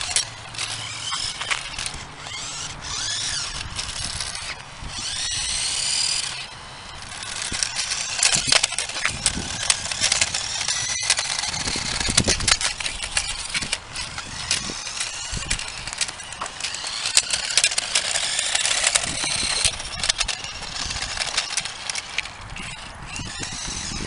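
Sharper Image Lean Machine remote-control toy motorcycle running, its small electric motor whining up and down in pitch as it speeds up and slows, with frequent sharp clicks and scrapes.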